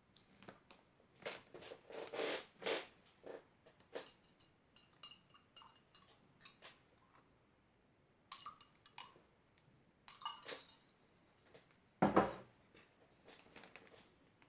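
A utensil scraping and clinking against a bowl in irregular strokes while stirring slime mixture, with one louder knock near the end. The borax activator is starting to set the glue into slime.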